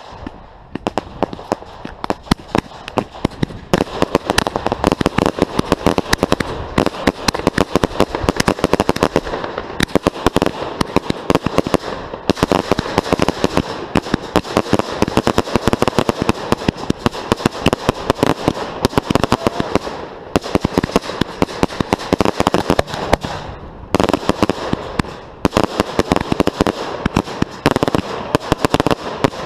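Fireworks firing at close range in a rapid, continuous barrage of sharp bangs and crackles, with a short lull about 24 seconds in.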